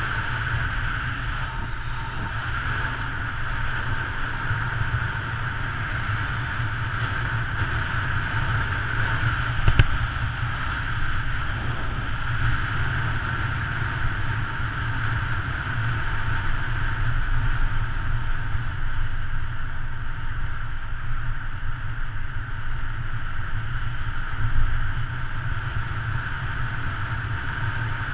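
Wind buffeting the microphone of a bike-mounted camera on a fast road-bike descent: a steady rush with a deep rumble. One sharp knock about ten seconds in.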